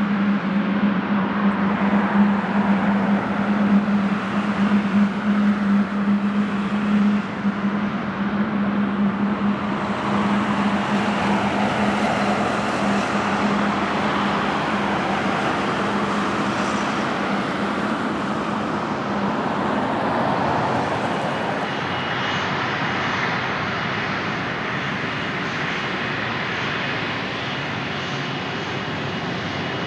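Jet airliner engines on approach to land, a continuous loud noise. A steady low hum carries through roughly the first third and then fades, leaving an even rushing sound.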